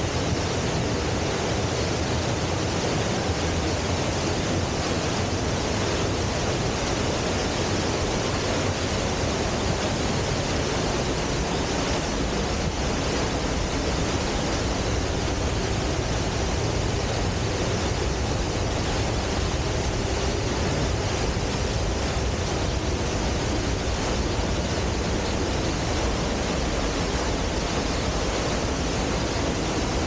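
Dry Falls, a waterfall on the Cullasaja River, pouring down a few metres away: a steady, unbroken rushing roar of falling water.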